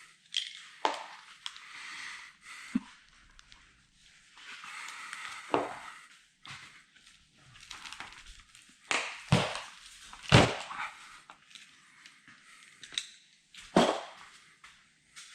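Scattered sharp knocks and clicks with stretches of scraping as hands and tools work the rubber seal around a VW T2 bus windscreen to free the glass. The loudest knocks come in a cluster about nine to ten seconds in, with another near the end.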